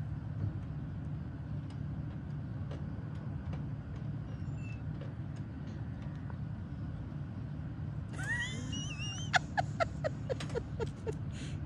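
Steady low outdoor rumble, then about eight seconds in a run of short, pitched vocal sounds that fall in pitch, a few a second and louder than the rumble.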